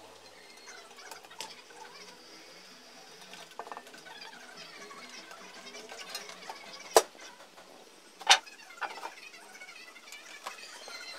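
Handling noise from a PC case: low rustling as it is moved about, with two sharp clicks about seven and eight seconds in and a few smaller clicks after.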